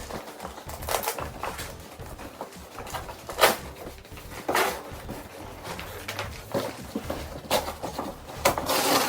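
Irregular knocks, scrapes and rustles of flat-pack workbench parts and packaging being handled during unboxing, with one sharper knock about three and a half seconds in.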